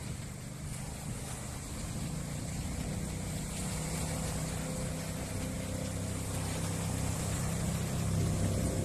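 Engine of a small homemade wooden-hulled speedboat running at speed across open water, over a steady hiss, growing gradually louder as the boat comes closer.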